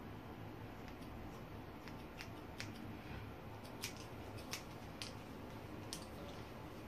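Small hair scissors snipping the ends of straightened hair: about six faint, sharp snips at uneven intervals, starting about two seconds in.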